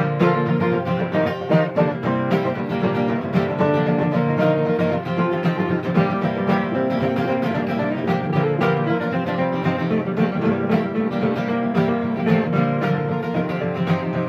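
Acoustic string band playing an instrumental break of a country-bluegrass song, guitar and plucked strings carrying it without singing.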